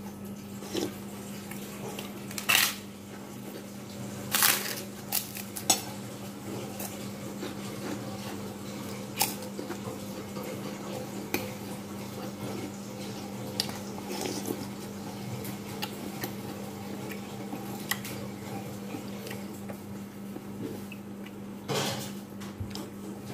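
Scattered clinks of a metal spoon against a ceramic plate and occasional crunches of a crisp cracker being bitten and chewed, over a steady low hum.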